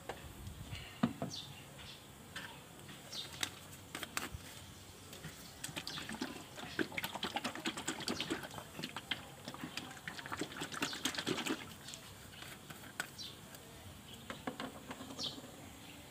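Plastic bottle of engine oil being shaken by hand to mix in a metal-treatment additive. It gives a quick run of sloshing and knocking strokes, densest through the middle, with scattered handling knocks either side.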